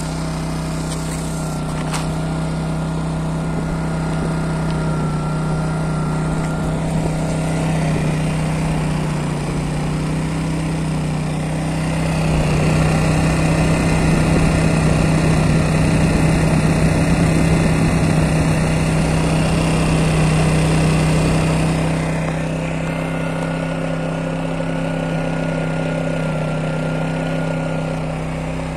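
Honda EX650 portable generator's small engine running steadily at constant speed, a continuous even hum that grows louder for about ten seconds in the middle. It runs smoothly on a freshly cleaned carburetor.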